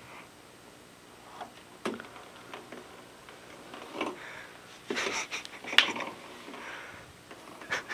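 The roll-up blind of a capsule hotel bunk being slid open by hand, with scattered soft clicks and rustling. The sharpest click comes a little before the six-second mark.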